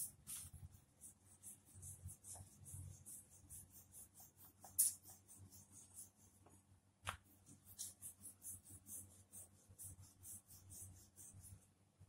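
Rolling pin rolling out a small disc of floured dough on a hard board: faint scratchy rolling with light ticks, and a few sharper knocks, the loudest about five seconds in and another about seven seconds in.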